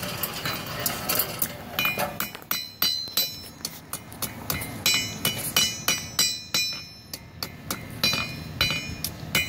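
Blacksmith's hammer forging steel at a yellow heat on an anvil: a run of ringing metallic strikes, irregular at about two to three a second, starting a couple of seconds in.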